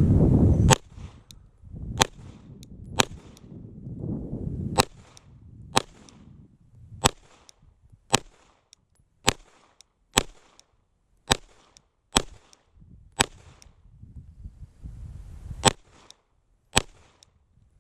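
Glock 17 9mm pistol fired in slow, steady single shots, roughly fourteen of them at about one a second.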